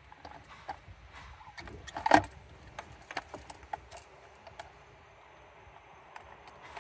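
Fuel pump module parts being handled and fitted together by hand: scattered light clicks and clinks, with one louder clack about two seconds in.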